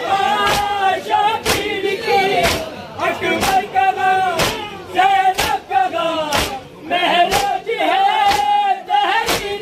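A crowd of male mourners chanting a noha lament together, with a sharp beat about once a second from matam, chest-beating in time with the chant.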